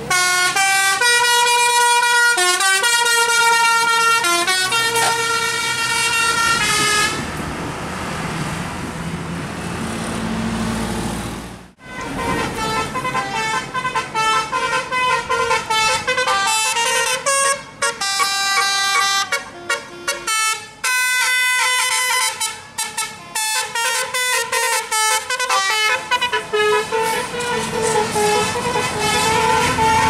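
Bus 'telolet' horn playing a tune in held notes that step from pitch to pitch, followed by a few seconds of traffic noise. After a sudden cut about 12 s in, a telolet horn plays a faster tune of short, choppy notes.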